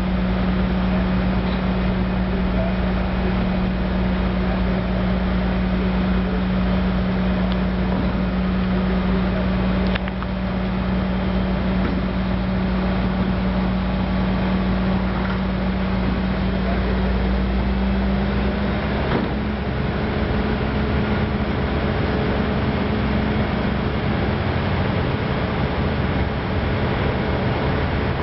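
A large engine running steadily under load, likely the lifting machine hoisting the air conditioner; its steady hum rises slightly in pitch about two-thirds of the way through.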